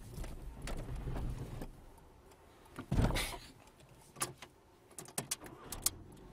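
Handling noises inside a car as the driver works the controls: a low rumble at first, a louder rustling thump about three seconds in, then several sharp clicks.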